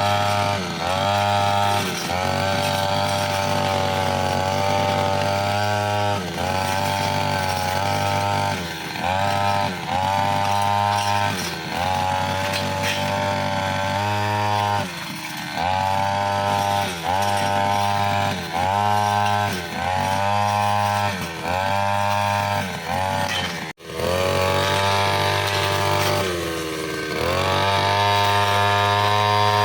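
Brushcutter fitted with a metal cutting blade, cutting mixed grass and small woody stems. The engine runs at high revs, its pitch dropping and recovering every second or two as it is loaded and throttled, with a momentary break about two-thirds of the way in.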